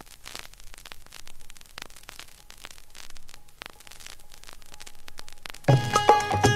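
Vinyl LP surface noise in the silent groove between tracks: faint hiss with scattered crackles and pops from the stylus. About five and a half seconds in, the next song's music starts.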